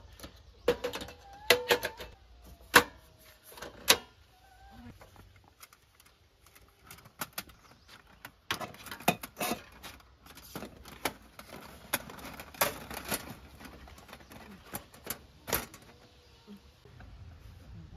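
Sharp metal clicks and clacks of a single-burner portable butane camp stove being set up: the gas canister fitted and its cover shut, then a folding aluminium windscreen put up around the burner.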